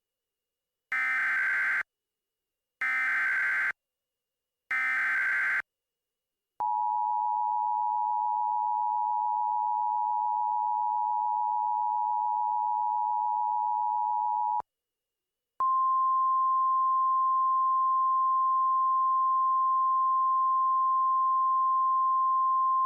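Emergency Alert System tones: three short buzzing data bursts of the SAME header, about a second apart, then the two-tone EAS attention signal held steady for about eight seconds. After a one-second gap, a single steady weather-radio alert tone sounds on its own.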